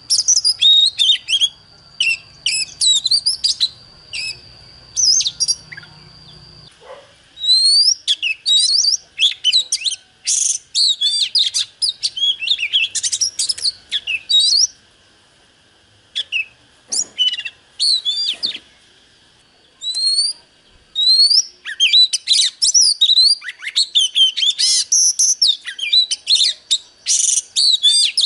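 Oriental magpie-robin singing: a rapid, varied run of clear whistles, slurred glides and chirps, broken by a couple of brief pauses. A steady high tone runs under the song for roughly the first seven seconds, then stops abruptly.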